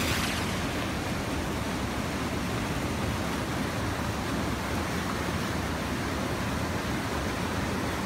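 Steady rushing of water from a waterfall cascade.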